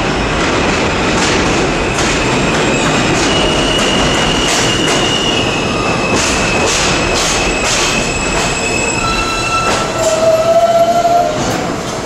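An R160A-1 subway train pulling into the station and slowing to a stop: a steady rumble of wheels on rail with many clicks over the rail joints, and high squealing tones that shift in pitch. A louder, lower tone comes in about ten seconds in as the train stops.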